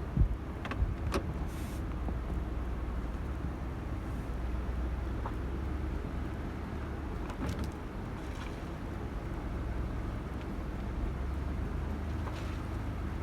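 Vehicle engine running steadily at low speed while reversing slowly, heard from inside the cab, with a few light clicks and knocks near the start and about halfway through.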